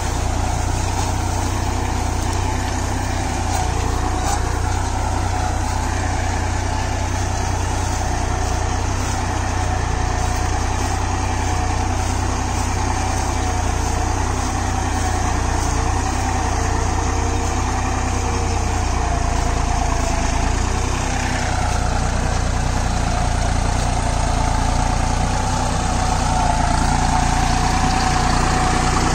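Deutz-Fahr Agromaxx 4055E tractor's diesel engine running steadily at a constant speed.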